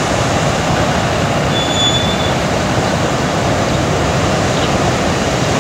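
Breaking surf: a loud, steady rush of heavy waves crashing into whitewater. A brief, thin high whistle sounds about two seconds in.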